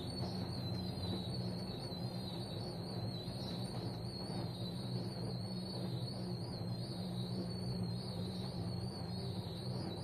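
AEG Öko-Lavamat front-loading washing machine in its wash phase: the drum motor runs with a steady low hum and a faint high whine while the laundry tumbles in sudsy water.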